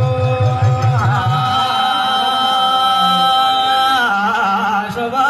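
Man's voice singing a jagar, the devotional folk song to the goddess Nanda Devi, holding one long note for a few seconds. The note wavers in ornaments about a second in and again near the end. A low pulsing beat sounds under it for the first second and a half.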